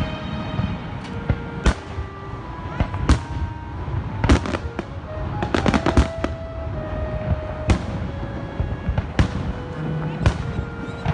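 Fireworks exploding in a string of sharp bangs at irregular intervals, several close together about four to six seconds in, with music playing underneath.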